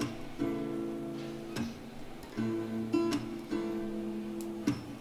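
Background music: acoustic guitar strumming chords, with no singing.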